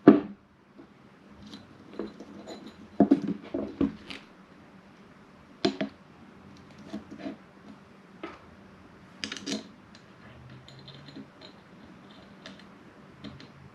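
Scattered metal clinks and knocks of parts and hand tools being handled as a steering wheel is bolted onto its hub adapter, at irregular intervals, the loudest about three seconds and nine seconds in.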